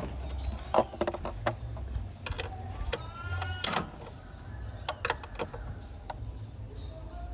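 Scattered sharp metal clicks and clinks as a bolt is handled and fitted by hand in a car's engine bay, over a low steady hum. A short rising squeak comes about three seconds in.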